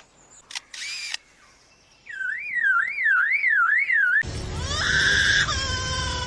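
Superb lyrebird mimicking: a few short clicks, then a siren-like whistle that wavers up and down about twice a second for two seconds. After that come several falling whistled notes over a steady hiss.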